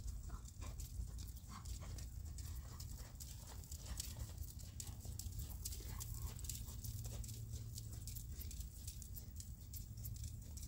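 A horse's hooves crunching on the sand and grit of a riding arena, a steady run of short, sharp steps over a low steady rumble.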